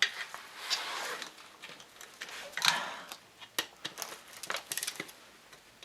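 Hands handling small parts and wiring while dismantling a scooter engine: a stretch of rustling, then a run of short clicks and taps in the second half.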